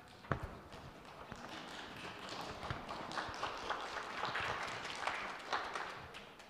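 A roomful of people sitting down and moving about: rustling, shuffling and footsteps with many small knocks. One sharp knock comes just after the start.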